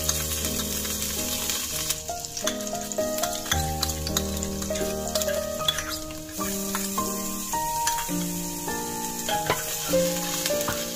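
Minced garlic and orange zest sizzling in hot oil in a stainless steel pot while a wooden spatula stirs them, over piano music.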